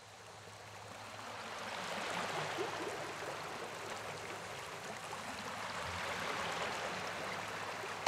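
Water rushing and splashing over rocks in a small stream, fading in over the first two seconds and then steady.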